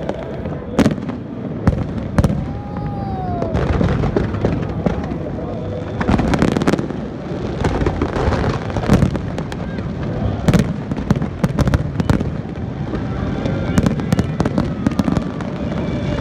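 Aerial fireworks going off in quick, irregular succession: many sharp bangs and crackles over a dense rumble.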